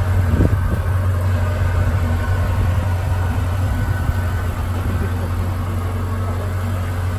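Twin-turbo V8 of a Ferrari 488 GTB-based 7X Vision GTO idling, a steady low drone with no revving.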